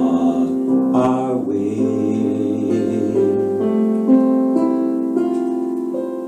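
Keyboard playing the closing chords of a slow jazz ballad, held and changing every second or so, fading out near the end.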